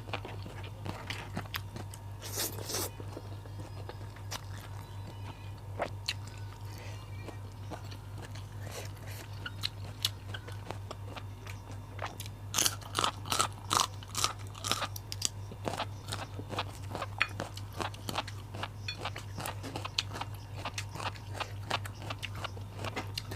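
Close-miked chewing and crunching of raw vegetables, irregular crisp bites and chews with a burst of louder crunches about halfway through, over a steady low hum.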